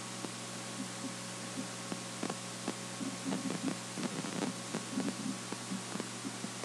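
Steady recording hiss and electrical hum, with scattered light irregular clicks from a computer mouse as a web page is scrolled. There are a few soft low sounds around the middle.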